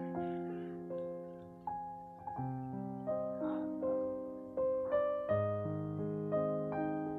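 Slow background piano music: single notes and chords struck one after another, each ringing and fading before the next.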